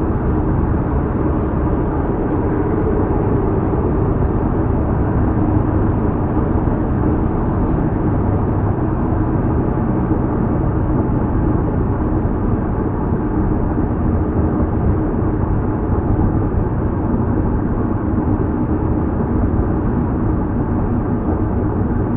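Steady road and engine noise of a car cruising at freeway speed, heard from inside the cabin: a constant, even drone of tyres on the road with a low hum underneath.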